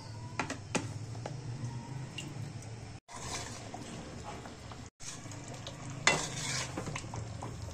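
Chicken cooking with yogurt in a steel karahi: a metal spatula clinks and scrapes against the pan over steady sizzling, with a louder hiss of sizzling about six seconds in. The sound is broken by two brief silent gaps.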